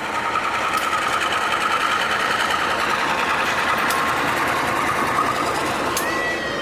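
Train moving through the station, a loud steady mechanical clatter with a wavering high tone. A higher squealing tone sets in near the end.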